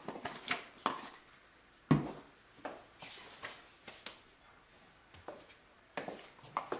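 Kitchen handling noises: scattered light knocks and clinks of dishes and wood, with one heavier thump about two seconds in.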